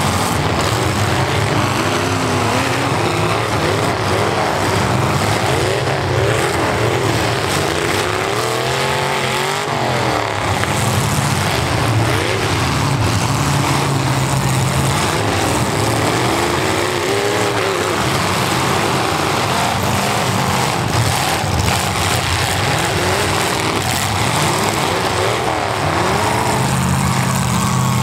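Several demolition derby cars' V8 engines running and revving hard at once, their pitch rising and falling over and over, with now and then a sharp knock from a collision.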